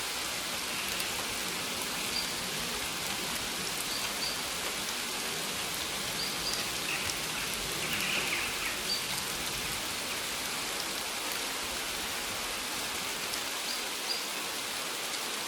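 Steady hiss of rain, with a few short, faint high chirps now and then.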